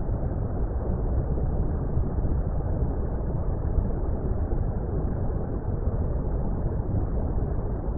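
Steady, muffled water rumble with no high end, a deep even underwater-style ambience that does not change.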